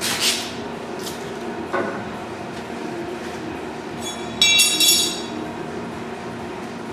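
Metal clanking and clinking: a short scrape at the start, a knock with a brief ring about two seconds in, then a louder ringing metallic clatter about four and a half seconds in, over a steady background hum.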